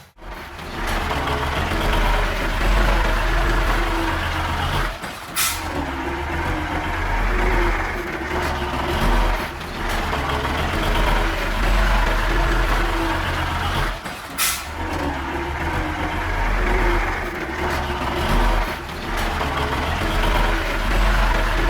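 Heavy diesel machinery of an earthmoving job, a bulldozer and dump trucks, running with a steady low engine rumble that rises and falls. Two brief sharp sounds stand out, about five seconds in and again about nine seconds later.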